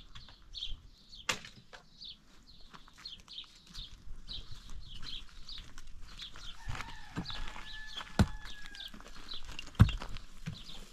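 A small bird chirping over and over, two or three high chirps a second. A few sharp knocks cut through, the loudest near the end a pickaxe striking hard stony ground. About six seconds in, a farm animal gives one drawn-out call lasting about two seconds.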